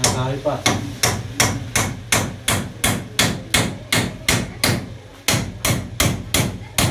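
Hammer striking over and over in a steady, fast rhythm of about three blows a second, with sharp ringing hits.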